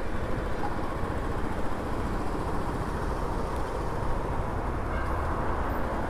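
Motorcycle being ridden, heard from the rider's microphone: a steady rush of wind and road noise with no distinct engine note standing out.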